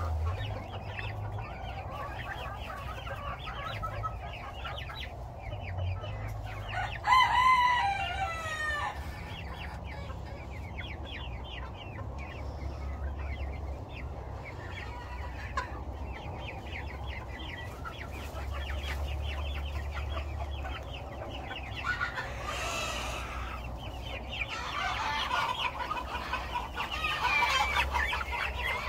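A flock of two-month-old silkie chicks peeping and chirping continuously. About seven seconds in comes one louder, longer call that falls in pitch, and the calling grows busier near the end.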